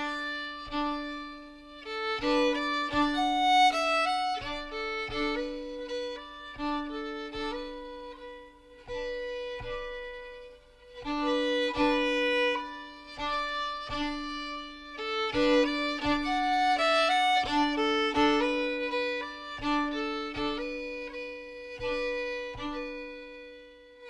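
Instrumental background music: a violin-like melody over a held low note, the phrase coming round again about halfway through.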